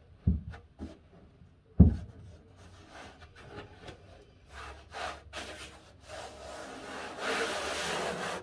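A hand rubbing and smoothing a cork sheet down onto a wooden baseboard wet with contact adhesive. The rubbing is loudest near the end. There are a couple of sharp knocks against the wood in the first two seconds.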